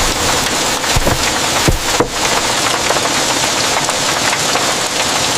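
Heavy rain falling steadily in a dense hiss, with a few dull knocks about one and two seconds in.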